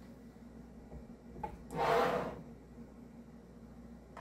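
A jar lifter and glass canning jars knocking and scraping inside an aluminum pressure canner: a faint click, then one short scraping rub about two seconds in.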